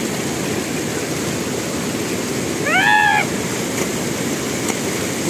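River water rushing steadily over rocks, with one short high-pitched cry about three seconds in that rises and then holds.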